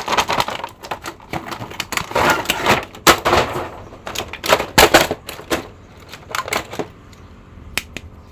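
Clear plastic blister packaging and a plastic bag being handled as small action figures are unpacked: irregular crinkling and sharp plastic clicks, thinning out near the end.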